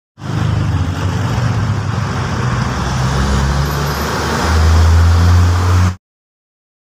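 Heavy diesel truck traffic with the low, steady engine sound of a Mitsubishi Fuso cargo truck drawing near; its engine gets louder and deeper about two-thirds of the way in. The sound then cuts off abruptly, leaving a second of silence near the end.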